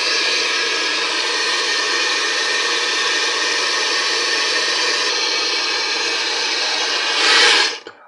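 Gas blowtorch burning with a steady hiss while heating a rusted, seized washing-machine tub nut so the rust in it breaks loose. The hiss swells briefly a little after seven seconds, then cuts off suddenly as the torch is shut off.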